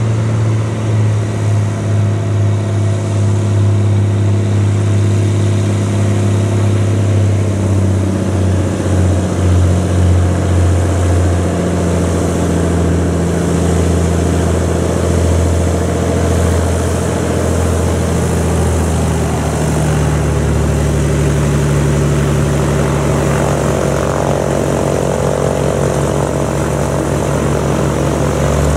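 Helio H-295 Super Courier's geared Lycoming flat-six engine and propeller running at low taxi power. It is a steady, even drone with a slow pulsing beat in the first part and small shifts in pitch later on.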